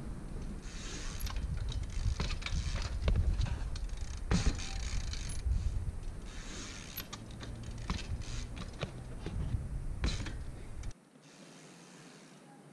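Trials bike ridden slowly over paving: the rear freehub ratchet buzzes in short bursts while the rider coasts, with a few sharp clicks and knocks from the bike. A low rumble sits underneath and stops abruptly about eleven seconds in.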